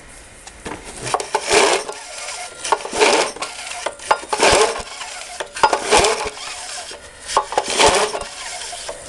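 Recoil starter rope of a 4 hp Tecumseh TVS105 four-stroke mower engine pulled five times, about one pull every second and a half, the engine turning over with a rasp but not firing while it is being checked for spark.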